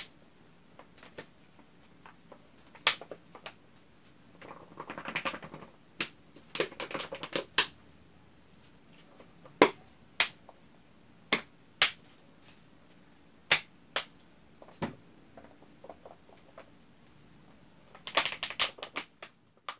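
Plastic bottle holding a glue-and-liquid-detergent slime mix being shaken by hand: scattered sharp knocks and clicks, with a few short bursts of rapid shaking clatter.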